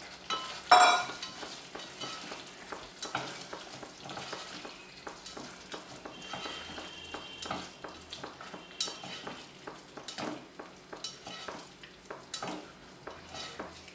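Plastic spatula stirring paneer cubes and peas into a thick masala gravy in a nonstick pot: irregular soft scrapes and small clicks over a faint sizzle from the gravy. A single sharp clack about a second in is the loudest sound.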